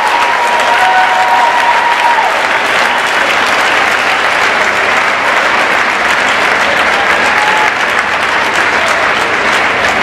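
Steady applause from a large crowd, many hands clapping at once without a break.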